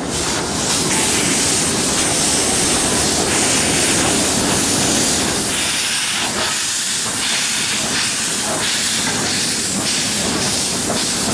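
Steady hiss of steam from a small narrow-gauge steam locomotive.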